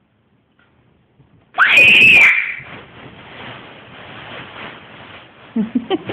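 A young child's loud, high shriek, rising in pitch and held for under a second, about a second and a half in. Rustling follows, then a quick run of short vocal sounds near the end.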